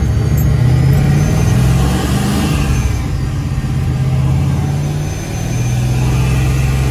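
Procharged 502 big-block V8 of a 1971 Chevelle heard from inside the cabin while driving. The revs climb, fall away about two seconds in, dip again near five seconds, then settle to a steady run.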